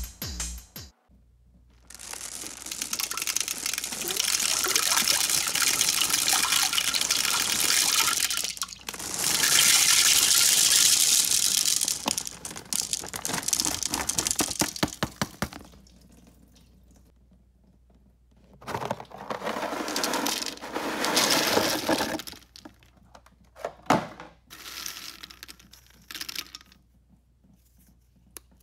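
M&M's and small Milk-Bone puppy biscuits poured from bags into a porcelain toilet bowl, rattling as they land. One long pour runs for about fourteen seconds, then a shorter pour comes a few seconds later, and a few brief pours near the end.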